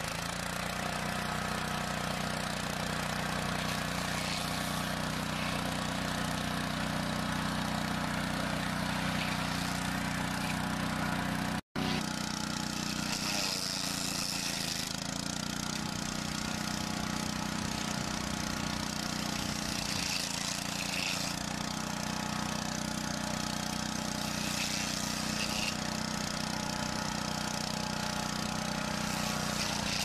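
Engine of tree-trimming machinery running steadily at a constant pitch. It cuts out for an instant about twelve seconds in, then carries on with the same steady engine sound.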